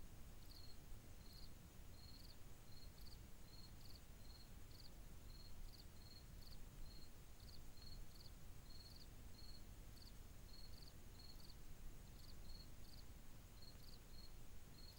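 A cricket chirping faintly and steadily, short high chirps about two a second, some in quick pairs, over a low background hiss.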